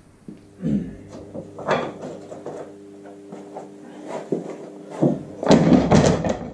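A bundle of thin oak strips being set down and shuffled on a wooden workbench: a cluster of wooden knocks and clatter about five and a half seconds in, after a few scattered knocks earlier. A steady low hum runs underneath.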